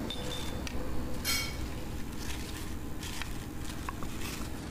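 Thin plastic sheet crinkling and rustling, with a few soft crackles, as hands press, fold and tidy damp lead-oxide battery paste wrapped inside it.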